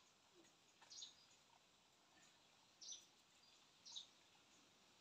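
Faint bird chirps, three short high notes spaced a second or two apart, over near silence.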